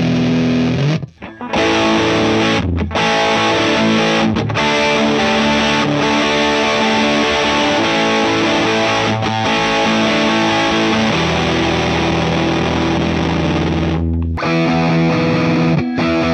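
Distorted electric guitar played through a cranked Marshall JMP model 1987 50-watt valve amp with every control on 10, miked on Celestion 12-inch speakers in turn: Vintage 30, then G12T-75, then Creamback G12M-65. There are short breaks between takes, about a second in and again near the end.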